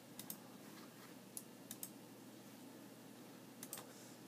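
Faint, scattered clicks of typing on a computer keyboard, in a few short clusters against near silence.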